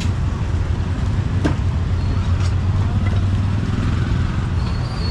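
A motor vehicle engine running steadily close by amid outdoor street noise, with one sharp click about a second and a half in.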